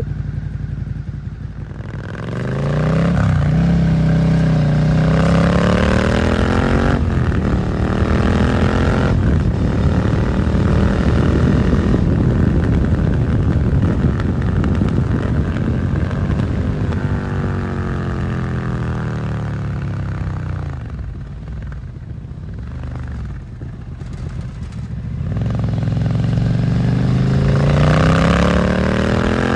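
A 2022 Suzuki SV650's V-twin engine through a Dominator GP aftermarket exhaust. It accelerates hard through several gears, the revs climbing and dropping back at each shift, then eases off with the revs falling. Near the end it pulls away again with rising revs.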